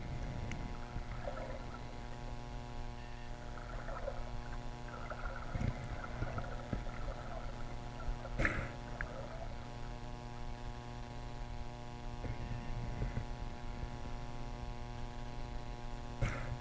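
Muffled underwater ambience picked up through an action camera's waterproof housing: a steady low rumble with a constant electrical hum, and faint scattered clicks and knocks, a sharper one about eight seconds in and again near the end.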